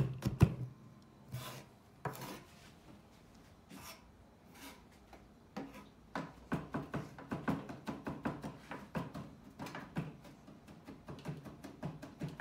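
Chef's knife chopping garlic and kaffir lime leaf on a plastic cutting board: quick repeated taps of the blade on the board, a pause of a few seconds with a few scraping sounds, then rapid chopping again from about six seconds in.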